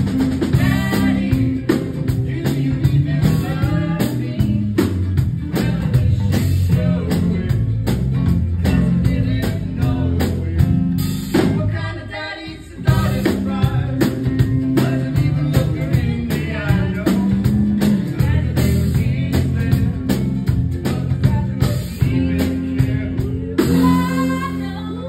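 A man and a woman singing a duet live to strummed ukulele, with a bass line underneath; the music breaks off for a moment about halfway through, then carries on.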